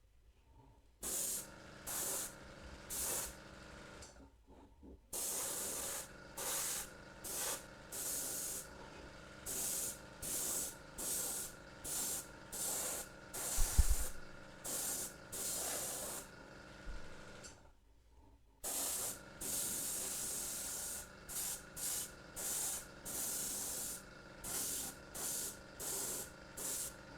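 Airbrush spraying paint in many short hissing bursts, about one a second, as the trigger is worked on and off, with a faint steady tone underneath. A single loud knock about halfway through.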